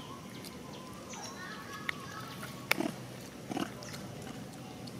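Long-tailed macaques making short squeaky calls, with a few sharp clicks scattered through, the loudest a little past the middle.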